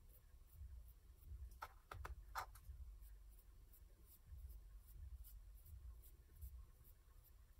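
Near silence with faint handling noise: fingers rubbing along a pen barrel as it is turned, with a few faint clicks about two seconds in.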